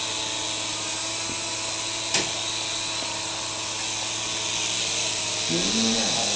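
Small electric motor and rotor blades of a toy RC helicopter running steadily, a high, even whine with a hiss over it. A single sharp click about two seconds in.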